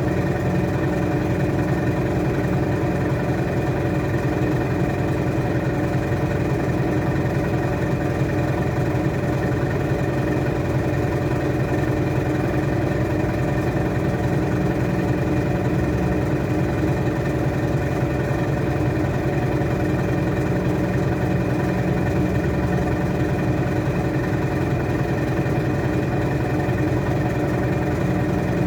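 Washing machine in its spin cycle, drum turning at a constant speed with a steady motor hum and whine.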